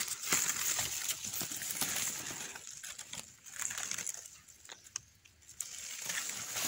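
Dry leaf litter and grass rustling and crackling as a hand reaches in and pulls a wild mushroom from the forest floor. The crackles are busiest in the first few seconds and quieten about halfway through.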